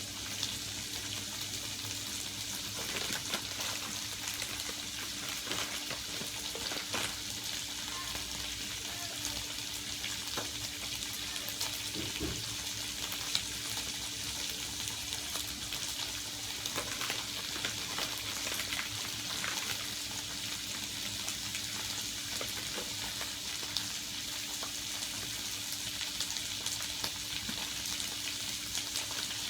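Oil sizzling steadily in a pan as garlic and sweet turnips stir-fry, with a few faint clicks of a utensil and a low steady hum underneath.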